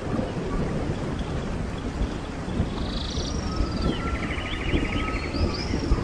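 Forest stream running steadily, with songbirds singing over it: high chirps and a whistle about halfway through, then a rapid trill and more whistles near the end.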